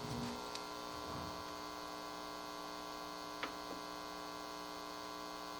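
Steady electrical mains hum coming through the mixer's audio chain, made of many layered steady tones, with a few faint clicks.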